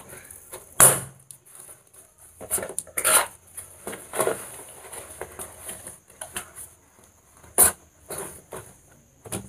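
Cardboard shipping box being opened by hand: flaps and tape rustling and scraping, with sharp knocks of the box against the table, the loudest about a second in and another near the end, as the boxed binoculars are lifted out.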